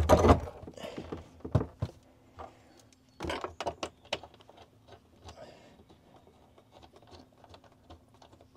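Scattered knocks and clicks from a Jeep Wrangler JLU rear seat frame and its mounting bolts being handled and fitted against the metal floor pan. The knocks are loudest in the first half and give way to light ticking, over a faint steady hum.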